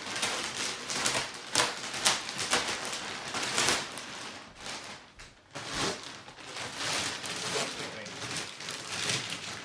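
Clear plastic mattress wrapping being cut and pulled off, crinkling and rustling unevenly with sharp crackles and a short lull about five seconds in.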